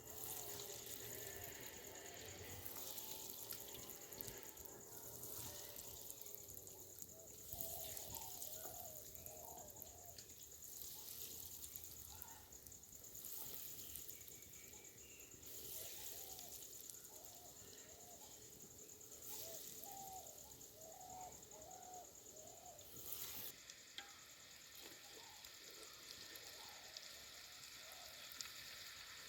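Salmon cutlets frying in hot oil, with a faint, steady sizzle. A few faint warbling chirps come in twice.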